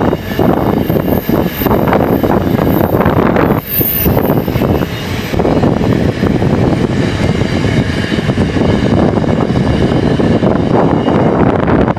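Freight train rolling past, a loud steady rumble of wagons running on the rails, with a thin high whine that fades out about halfway through.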